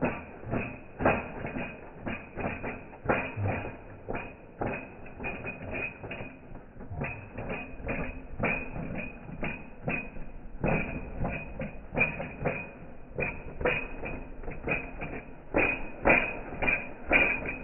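Irregular clicking and knocking, several sharp clicks a second, with no steady running sound.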